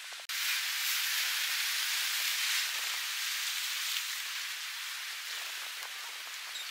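Steady hiss of rain falling. It starts abruptly a moment in and eases slightly after about four seconds.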